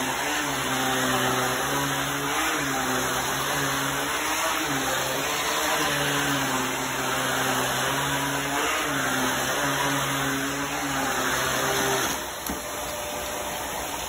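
Upright vacuum cleaner running over a rug, its motor note stepping up and down every second or two. About twelve seconds in, the hum drops away to a quieter, lower rush.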